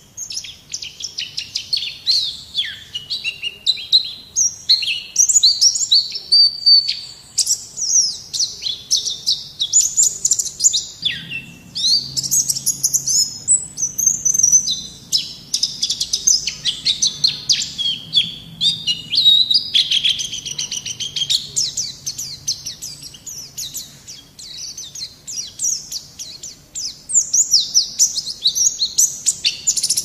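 White-eye (pleci) singing a long, fast twittering warble of high chirps and trills, with only brief pauses.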